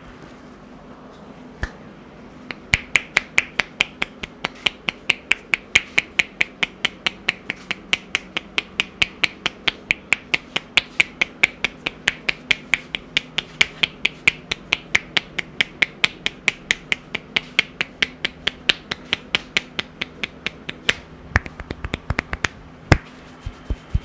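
Rhythmic percussive head massage: the barber's pressed-together hands strike the scalp, the fingers clacking in sharp, even claps about four a second. Near the end this gives way to a quicker, softer patter and one sharp snap.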